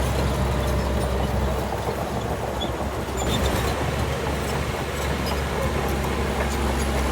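Heavy diesel earthmoving machinery running steadily, with scattered light clinks over the engine noise.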